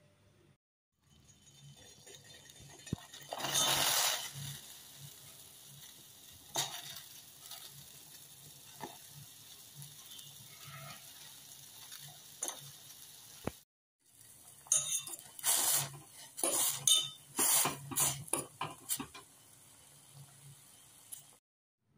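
Cooking noises from a steel pot of water on the stove as instant noodles are put in and boiled: short scrapes, clinks and splashes over a low steady hum, with a louder burst of hiss about four seconds in and a run of clatter near the end. Brief dead silences cut in twice.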